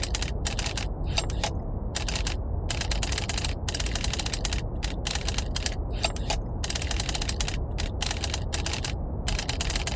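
Typewriter keys clattering in dense, rapid runs broken by short pauses, over a steady, deep brown-noise rumble.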